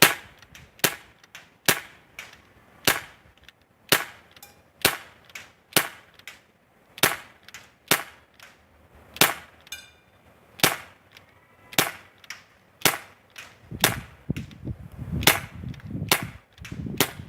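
Crosman C11 CO2 BB pistol fired again and again, about sixteen sharp shots at roughly one a second.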